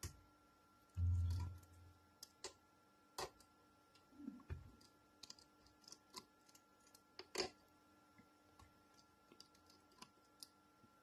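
Small tool-handling clicks and taps: a T8 Torx screwdriver working out the MacBook's hinge screws and the screws and parts being handled, as scattered light clicks. There is one dull thump about a second in and a softer knock a few seconds later.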